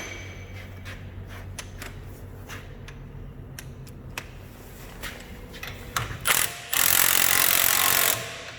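Metal tools clicking and clinking as a socket and extension are handled. Near the end a power tool runs in one loud burst of about a second and a half, then stops.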